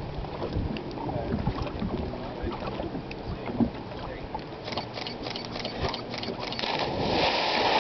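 Water lapping with scattered light knocks, then three people hit a lake almost together after jumping off a rock ledge, making one big splash near the end.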